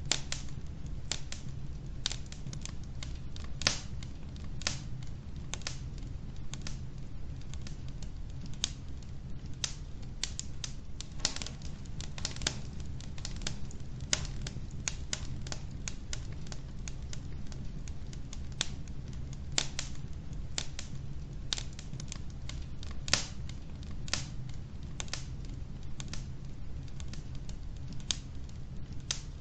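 Wood logs burning in a fireplace: irregular sharp crackles and pops, one or two a second, with a couple of louder pops, over a steady low background rumble.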